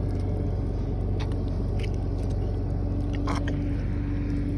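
A steady low motor drone with a thin hum over it, and a few short wet squelches and clicks of a hand digging in soft mud for razor clams, the loudest a little over three seconds in.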